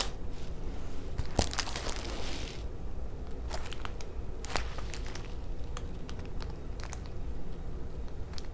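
A diamond painting canvas and its plastic cover film crinkling and crackling as it is handled and bent. There are scattered sharp crackles, with a longer rustle from about one and a half to two and a half seconds in.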